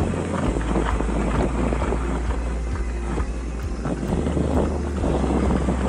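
Wind buffeting the microphone over the steady rattle and knocking of a mountain bike riding a rough trail.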